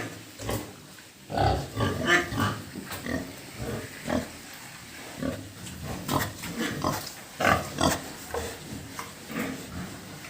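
Pigs calling with many short, irregular grunts and squeals.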